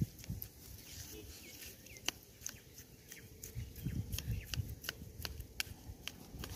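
A kitchen knife stirring and mashing a damp rice-bran bait mix in a small plastic bowl: soft, irregular low thumps as the blade presses into the mash, with light clicks of the blade against the bowl.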